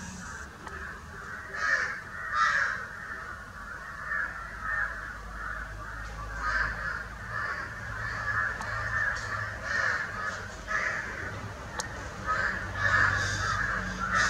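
Birds calling in a steady run of short calls, about two or three a second, with a few higher chirps over them.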